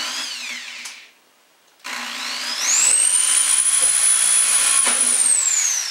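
Corded electric drill boring a small pilot hole in black steel stovepipe: a short burst, a brief stop, then the motor spins up to a high steady whine for about two seconds and winds down near the end.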